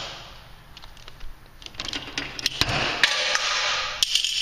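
Sharp metal clanks and knocks as a broken 18-gauge narrow-body Clopay garage door hinge is worked off the door, several hard impacts coming from about halfway in.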